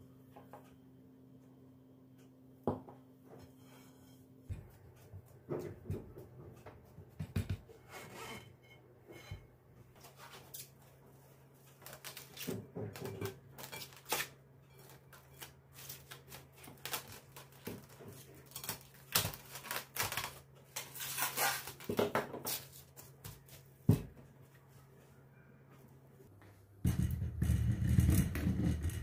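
Household handling sounds: scattered clicks and knocks of objects being picked up and set down, over a steady low hum. Near the end comes a loud rushing noise lasting about two seconds.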